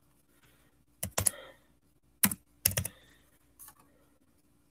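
A handful of sharp key taps on a calculator, spaced irregularly, as prices are entered to be added up.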